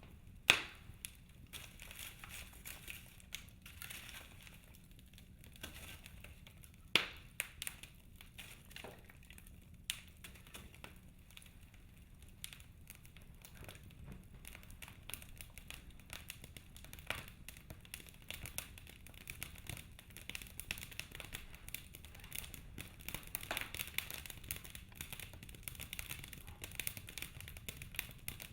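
Wood fire crackling in a fireplace: frequent small snaps and crackles, with two loud sharp pops about half a second in and about seven seconds in, and the crackling getting busier near the end.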